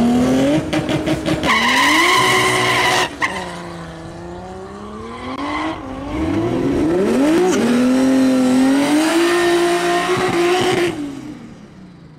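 Drag car doing a burnout: the engine revs hard with the tyres squealing. It eases off about three seconds in, revs up again, and cuts off near the end.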